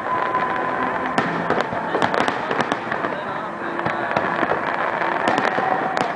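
Fireworks going off in a dense, continuous barrage of sharp cracks and pops.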